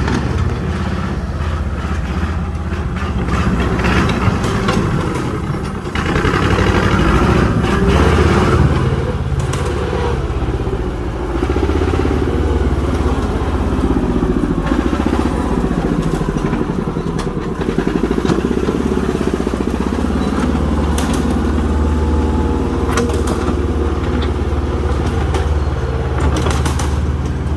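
Diesel engine of a heavy earthmoving machine running under load, louder for a few seconds about six seconds in, with sharp clanks now and then in the second half.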